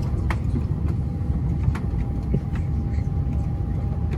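Steady low rumble of an Airbus A330's cabin noise, with a thin steady tone running through it and a few light clicks.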